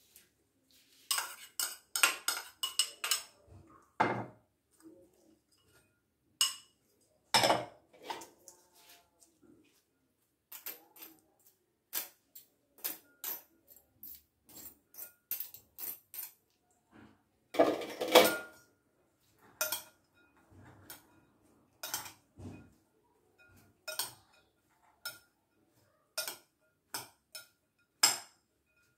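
Repeated sharp clinks and knocks of a metal wire strainer and utensils against a glass mixing bowl as shredded cabbage and carrot are tipped in. There are a few louder knocks and a run of light, evenly spaced taps near the middle.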